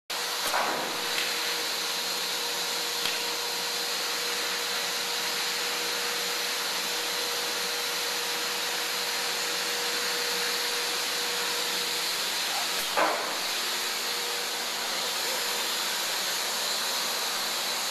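Steady machinery hum and hiss from a 1988 Minster 400-ton mechanical press and the shop around it, with no repeating press strokes. A faint steady whine stops about twelve seconds in, and a few single clanks sound, the loudest about thirteen seconds in.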